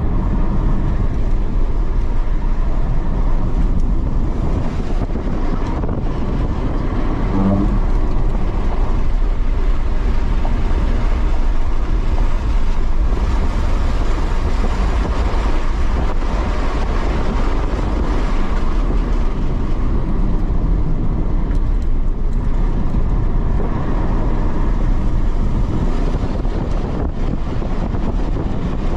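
Cabin noise of a Tesla Model 3 Performance driven hard on a racetrack: a steady, dense rumble of tyres, road and wind, with no engine note from the electric drivetrain.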